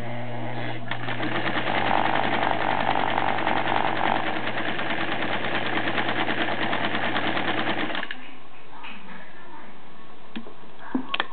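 Singer 306W electric sewing machine stitching fabric: the motor hums and the needle runs at a rapid, even rhythm for about seven seconds, then stops. A few sharp clicks follow near the end.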